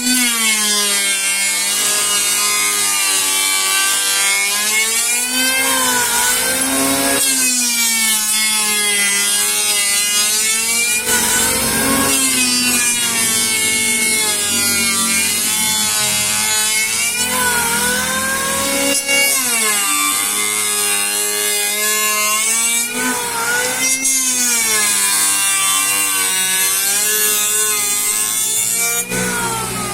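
Sawmill saw cutting Borneo ironwood (Eusideroxylon zwageri): a loud, ringing whine whose pitch sags as the blade bites into the dense hardwood and climbs back, over and over every few seconds. It fades out near the end.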